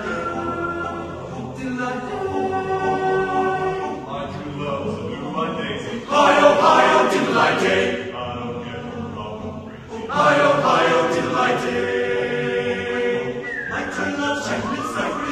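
Choir singing as backing music, with sustained voiced notes that swell louder about six seconds in and again about ten seconds in.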